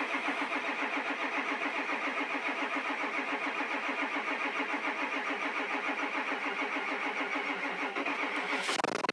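Ford 7.3 diesel V8 being cranked by its starter, a slow, even churning of a few beats a second: a weak starter and batteries turning a cold engine on stiff fresh oil while the high-pressure oil pump tries to build pressure. Near the end the rhythm breaks off into a louder, rougher sound.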